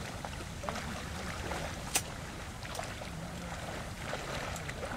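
Wind rumbling on the microphone beside open water, with a few faint ticks and one sharp crack about two seconds in.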